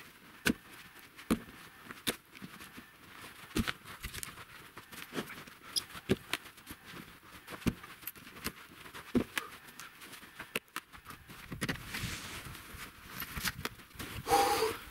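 Sawn firewood rounds being tossed from a sled onto a woodpile: irregular wooden knocks every half second to a second, with footsteps crunching in snow.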